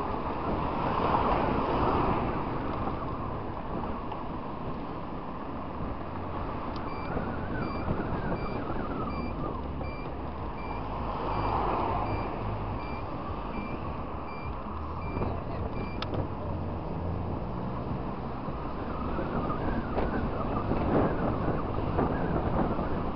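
Motor scooter's engine running under way, with wind and traffic noise. About seven seconds in, a click starts a high electronic beep that repeats about every two-thirds of a second for roughly nine seconds, then stops with another click.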